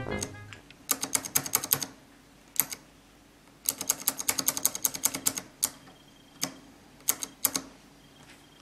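Shift key of a mechanical keyboard with clicky blue-stem switches, mounted on Costar stabilizers, pressed repeatedly. The presses come in quick runs of clicks, then a few single presses near the end.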